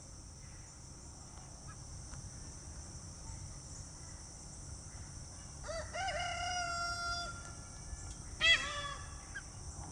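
Peahen alarm calls. About six seconds in comes a call that rises and then holds for over a second, and about two seconds later a shorter, louder one.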